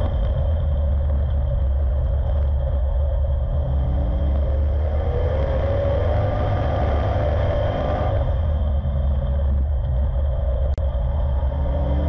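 Street stock race car's V8 engine heard from inside the cockpit, running hard over a heavy low rumble. Its pitch rises and falls as the driver works the throttle through the turns, dropping away a little after the middle and climbing again near the end.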